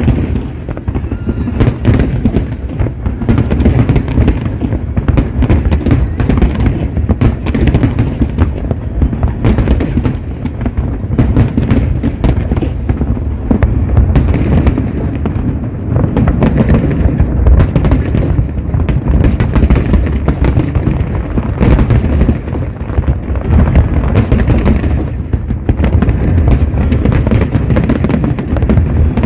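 Aerial fireworks bursting in a dense barrage: many booms and crackles in quick succession over a continuous low rumble.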